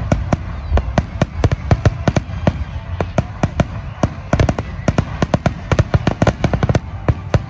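Fireworks display: a rapid, irregular barrage of sharp bangs and pops, several a second, over a steady low rumble.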